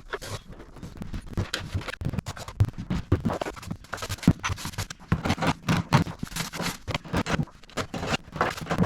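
Irregular, quick scraping and scratching strokes, repeated many times.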